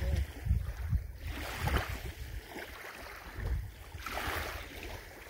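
Wind gusting across the microphone, strongest in the first two seconds, over the hiss of small waves lapping at the lake's edge.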